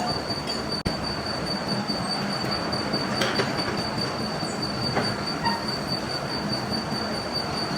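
Machine-shop machinery running steadily, with a thin high whine over the noise and a few light metallic clicks.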